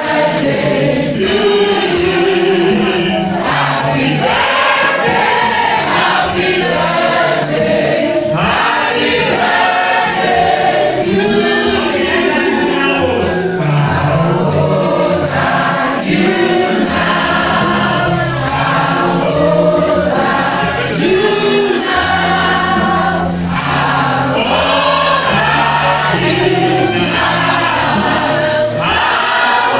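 Church choir singing a gospel song over a steady percussion beat.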